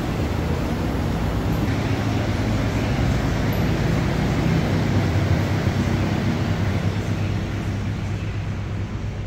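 A car running, with a steady engine and road noise that swells a little midway and eases off near the end.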